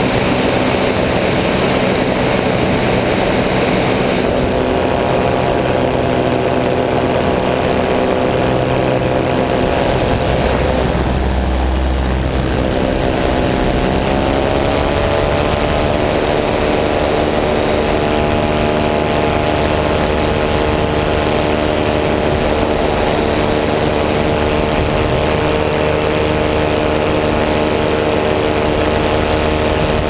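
Ultralight aircraft's propeller engine running steadily in flight, with wind rushing past. About eleven seconds in the note blurs under a brief low rumble, then climbs and settles a little higher by about fifteen seconds as the throttle is opened.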